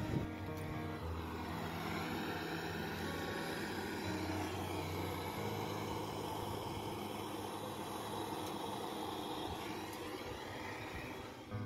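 Gas brazing torch flame hissing steadily as the copper refrigerant pipe joints at a freezer compressor are brazed.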